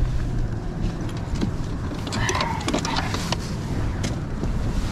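Clunks, clicks and rattles of a Garmin bow-mount trolling motor being handled and lowered off its deck mount, over a steady low rumble.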